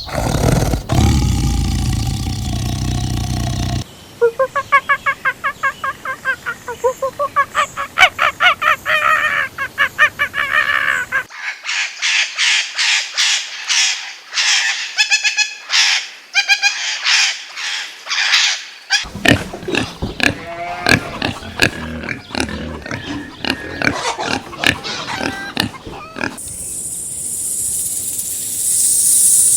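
A run of short clips of farm animal calls: a low, noisy passage, then long series of rapid, repeated pitched squeals and calls, about three a second. A hissing noise comes in near the end.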